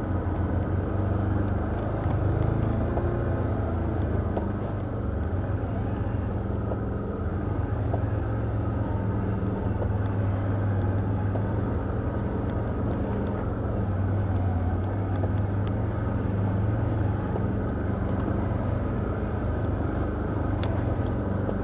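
Can-Am Outlander ATV engine running steadily while the quad picks its way along a rough woodland trail, with a few light clicks over the engine drone.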